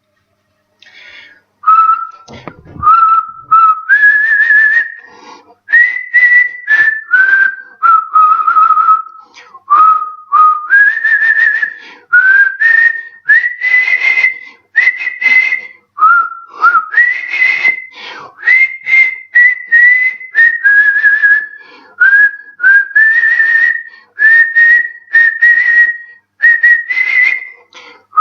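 A man whistling a melody through pursed lips: clear single notes that step up and down, played in short phrases with brief pauses between them.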